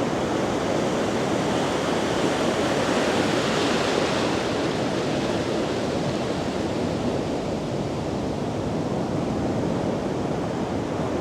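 Ocean surf: big Atlantic waves breaking and washing up the beach, a steady rushing noise that swells slightly about four seconds in.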